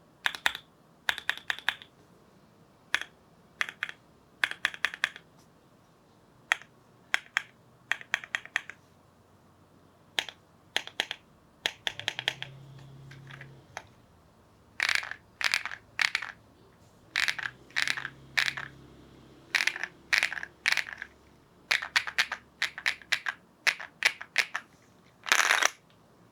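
Mechanical keyboard with KTT Macaron Pink linear switches being typed on, in short bursts of keystrokes separated by pauses, with a few fast runs. The switches have a POM stem, a polycarbonate top housing and a nylon bottom housing.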